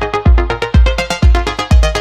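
Background electronic music with a steady, heavy kick drum about twice a second and short synth notes.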